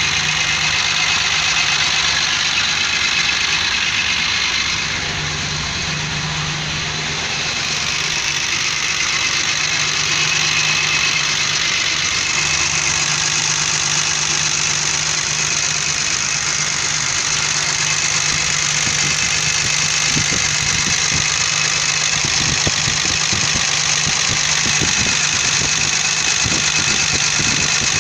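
BMW M20B20 2.0-litre inline-six idling steadily, breathing through an open mesh sport air filter on its carburettor.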